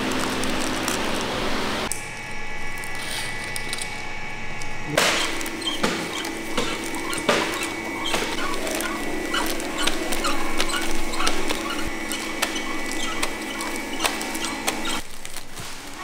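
Candy packaging. First plastic bags and wrappers rustle as they are handled. Then, from about five seconds in, a small packaging machine runs with a steady hum under rapid small clicks and ticks.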